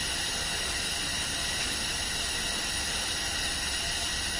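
Steady hiss with a low hum underneath: hospital room ambience.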